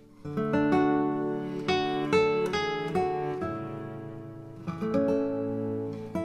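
Background music: an acoustic guitar playing plucked and strummed chords, entering just after the start.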